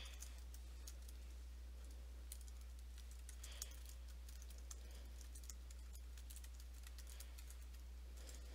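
Computer keyboard being typed on: a run of faint, irregular keystrokes over a steady low hum.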